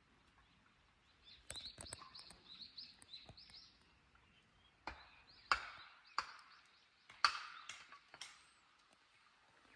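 A bird singing a run of high, repeated arched notes, followed a few seconds later by several sharp, loud clicks or knocks.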